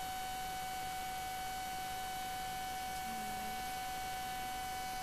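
Steady electrical whine: one clear tone with several fainter higher tones above it, over even hiss. The pitch and level do not change.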